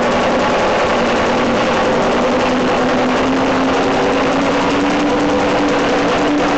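Hammer beating the 1.4 mm steel barrel top in rapid, continuous strokes as it is sunk into a steelpan bowl. Underneath runs a steady ringing tone that slowly rises in pitch.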